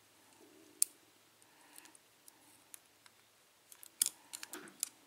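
Small sharp metal clicks from the upper pins and springs of a 5-pin pin-tumbler lock cylinder being taken out: one click about a second in, then a quick cluster of clicks near the end.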